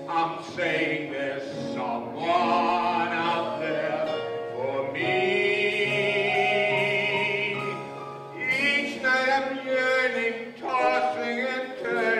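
A man singing a slow show tune, holding one long note with a wide vibrato near the middle.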